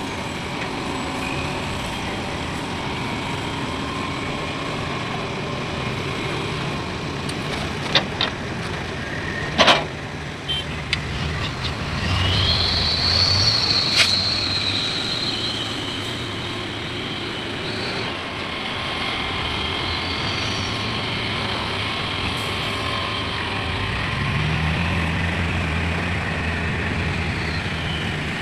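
Heavy diesel machinery, an excavator and a dump truck, running steadily during loading. Two sharp knocks come about eight and ten seconds in, a high whine runs through the middle, and an engine rises in pitch near the end.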